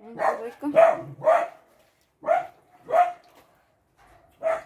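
A dog barking about six times: three quick barks in the first second and a half, then three more spaced about a second apart.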